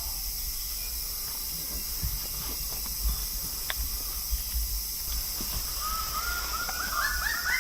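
Steady high rainforest insect hiss, then from about six seconds in a fast series of arched calls, about four a second, growing louder: male lesser birds of paradise calling at their display lek.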